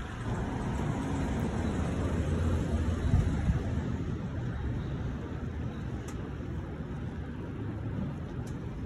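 Steady low rumble of street noise, swelling for a few seconds about a second in and easing off after.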